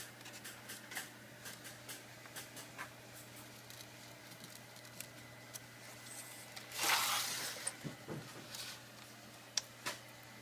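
Faint clicks and light scraping as a prying tool works around the edge of a laptop screen held by plastic locking clips, with a louder scrape about seven seconds in and two sharp clicks near the end.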